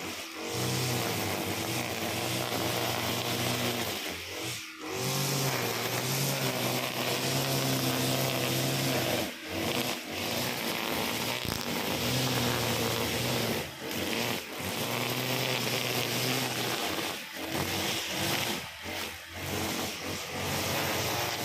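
Honda GX35 four-stroke engine on a brush cutter running at high speed while the cutting head slices through grass. The engine speed dips briefly several times along the way.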